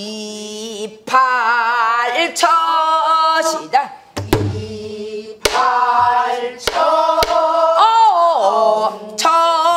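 A woman singing a phrase of a southern Korean (Namdo) folk song in pansori style, with deep wavering vibrato and pitch slides across several sung lines. A few sharp strokes on a buk barrel drum fall around the middle.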